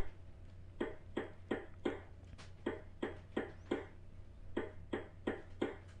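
Recorded hammering sound effect: a hammer striking a nail, short sharp knocks about three a second in runs of four with short gaps between the runs.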